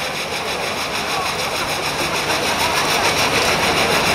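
Horizontal firework wheel spinning, its drivers giving a steady hissing rush of sparks that pulses evenly as it turns.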